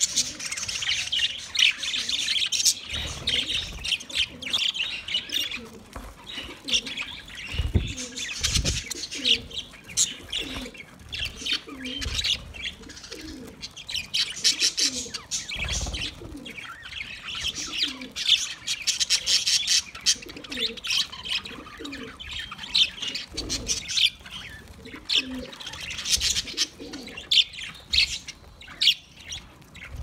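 A flock of budgerigars chattering and warbling in busy, overlapping chirps. Under it, a low cooing call repeats about once a second, with a few dull thumps.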